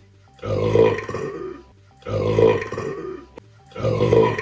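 A man burping loudly three times in a row, each long, throaty burp lasting about a second.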